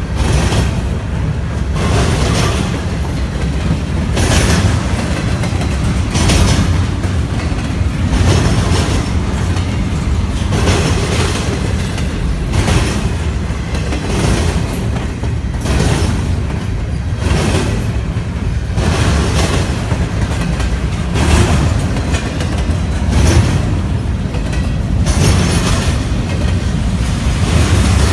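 Empty intermodal well cars of a freight train rolling past close by: a steady rumble of steel wheels on rail, with a clickety-clack over the rail joints about every two seconds.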